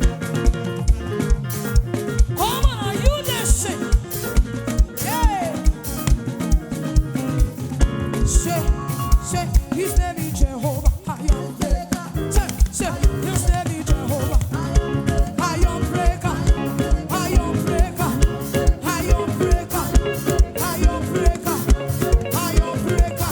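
Live gospel praise band playing an upbeat, dance-like groove over a steady drum beat of about two strikes a second.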